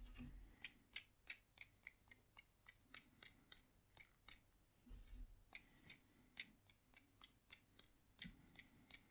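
Light, irregular taps of a paintbrush, roughly two to three short clicks a second, as speckles of paint are tapped onto the sand area of a watercolour for texture.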